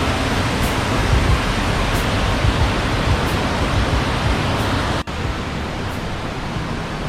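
Waterfall, a steady rush of falling water. About five seconds in there is a sudden break, and then the rush goes on a little quieter.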